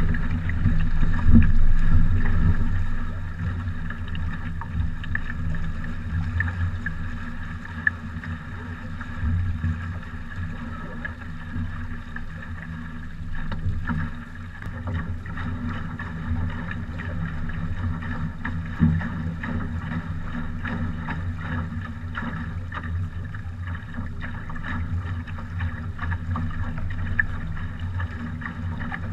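Water rushing and splashing along the hull of a sailing trimaran, heard close to the water, with wind on the microphone. It is louder for the first couple of seconds, then settles into a steady wash with small irregular splashes.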